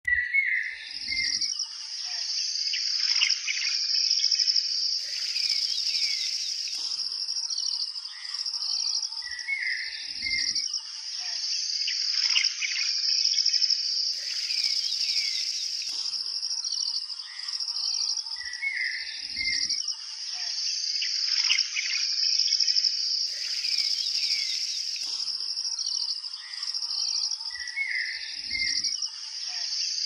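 Nature ambience: a steady high-pitched insect trill, crickets or cicadas, with bird chirps and calls over it. The same short recording repeats about every nine seconds as a loop.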